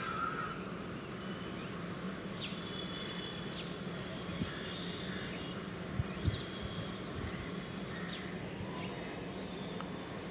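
Birds giving short, high chirps and whistles now and then over a steady background hum, with two brief low thumps about six seconds in.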